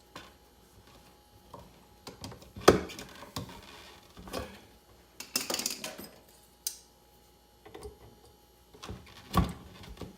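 Scattered knocks and clicks with a brief scraping rustle about halfway through: stiff wiring and metal parts being handled and pushed into a cramped electrical box.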